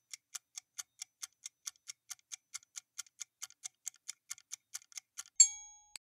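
Quiz countdown-timer sound effect: fast, even clock ticks, about four a second, broken off near the end by one loud, bright chime that rings for about half a second and signals the correct answer being revealed.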